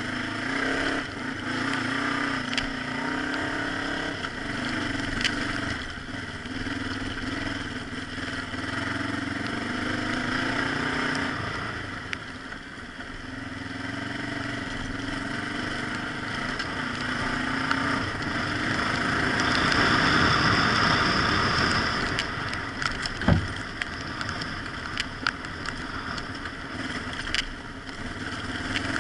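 Adventure motorcycle's engine running at low revs over a rough dirt track, its note rising and falling with the throttle, over wind and tyre noise. Scattered knocks and clatter from the bike, with one sharp knock a little past two-thirds of the way through as the loudest moment.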